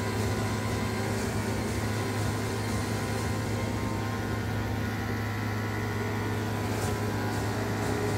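Corded electric dog-grooming clippers running with a steady buzz as they trim the hair on a dog's face.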